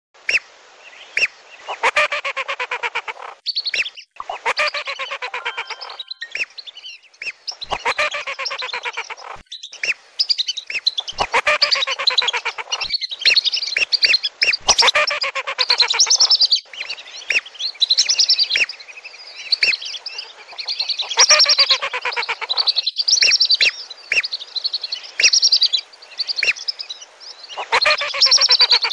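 A flock of whistling ducks (belibis) calling, a lure-call recording. Many shrill whistles overlap continuously, and bouts of rapid, buzzy chattering notes come every few seconds.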